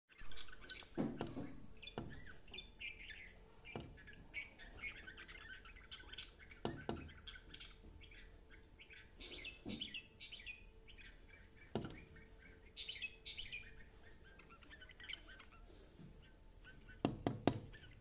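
Red-whiskered bulbul chirping in runs of quick high calls, with a few dull knocks scattered among them and a quick pair of knocks near the end.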